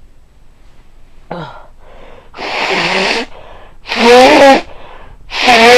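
A person sneezing repeatedly in a sneezing fit. A short catch of breath comes about a second in, then a run of sneezes about a second and a half apart, the later ones loudest.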